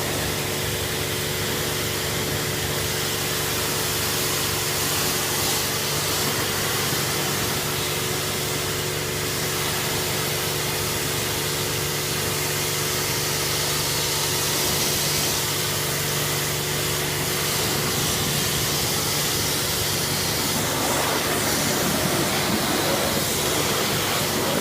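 Twin-pump cold-water pressure washer running: a steady pump hum under a constant hiss of high-pressure spray.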